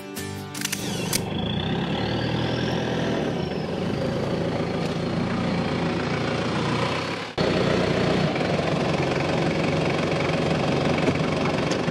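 A car running, with a steady engine and road noise. About seven seconds in it cuts abruptly to a slightly louder take of the same kind of noise.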